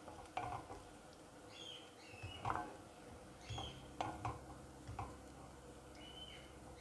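Wooden spatula stirring chopped onions in a nonstick frying pan, knocking against the pan a handful of times. Faint high chirps are heard between the knocks.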